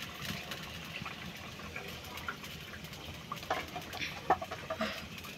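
Thin fish-and-potato curry boiling in a metal karahi over a wood-fired clay stove: steady bubbling with scattered small pops and ticks, more of them a few seconds in.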